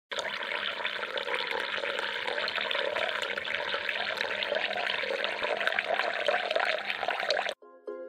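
Water from a tabletop fountain trickling off a leaf-shaped spout and splashing into the aquarium below, a steady patter that cuts off suddenly near the end. Plucked mandolin music begins just after.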